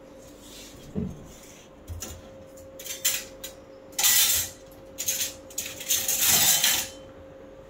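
A metal spoon and utensils clinking and scraping in several short bursts, the spoon working in an open tub of butter beside the pan. Under them runs a faint steady hum, likely from the induction cooktop heating the tawa.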